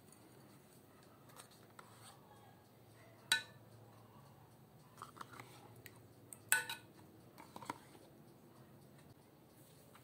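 Metal spoon clinking against a glass baking dish twice, a few seconds apart, with faint scraping and handling ticks between, as cream is spooned and poured over sauce.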